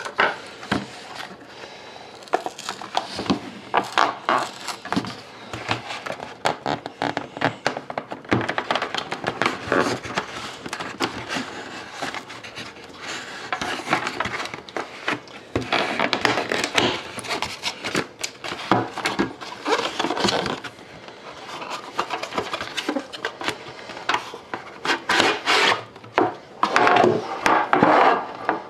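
A 2011-12 Upper Deck The Cup card tin being opened and its contents handled by hand: continuous rubbing and scraping with many small clicks and knocks.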